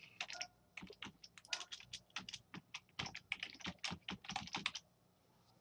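Computer keyboard typing: a run of keystrokes that stops near the end.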